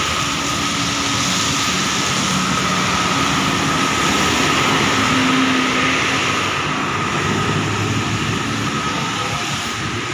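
Busy road traffic on wet asphalt: a steady hiss of tyres on the wet road with cars and motorcycles running past. A bus passes close by around the middle, where the sound swells to its loudest.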